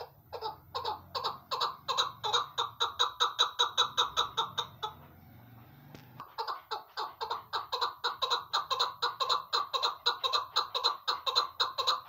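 Female chukar partridge giving its rapid, cackling call, about six notes a second in two long runs, broken by a pause of a second and a half about five seconds in.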